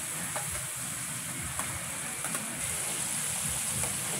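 Chicken pieces deep-frying in a large stainless steel fryer of hot oil: a steady sizzling hiss with scattered small pops.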